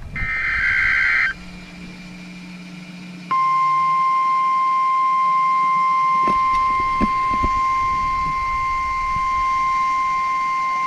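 NOAA Weather Radio emergency alert signalling. It opens with a short burst of SAME digital header data, a harsh warbling screech lasting about a second. After a pause of about two seconds, the 1050 Hz warning alarm tone comes on and holds as one steady, loud, high beep. The tone announces that a warning is about to be read.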